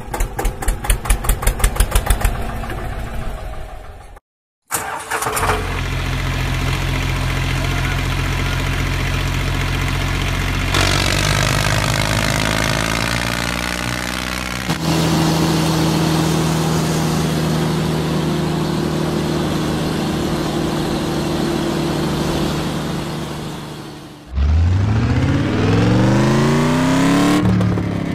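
Engine sound effects for the toy vehicles: a tractor engine chugging in quick even pulses, a brief cut-out, then running steadily with a couple of shifts in pitch. Near the end a car engine revs up in repeated rising sweeps.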